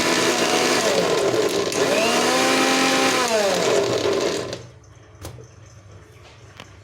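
Electric kitchen blender grinding cooked tomatoes, onions, chillies and roasted chana into chutney paste: the motor whine sags and picks up again about a second in, then winds down and stops about four and a half seconds in. A few faint clicks follow.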